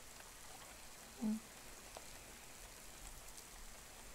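Steady soft rain as a background bed. About a second in comes one brief, low voiced murmur.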